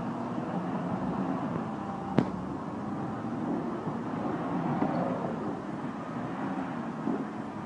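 A heavy truck's engine running steadily as it tows an SUV through snow, with one sharp click about two seconds in.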